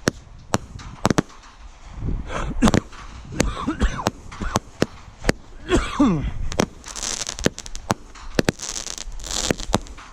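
Fireworks going off in quick succession, a string of sharp bangs from bursting shells. Over the second half come bursts of high hissing spray between the reports.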